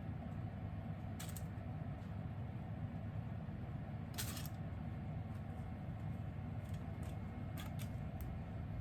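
A steady low rumble with a few short, light clicks and rattles over it: one about a second in, a slightly longer one near the middle, and several close together near the end.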